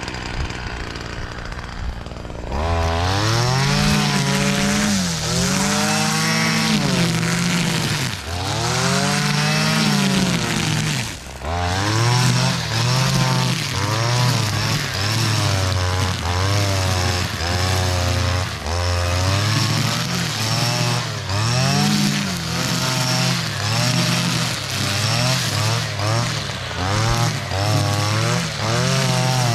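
Petrol brush cutter with a nylon-line head cutting tall grass. The engine runs low for the first couple of seconds, then opens up. Its pitch keeps rising and dipping every second or two as the line bites into the grass and the throttle is worked.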